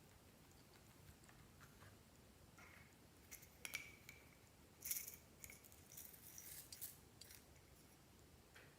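Faint handling noise of slime-making: a scatter of short sharp clicks and crackles from about three seconds in until about seven and a half seconds in, the two loudest near four and five seconds.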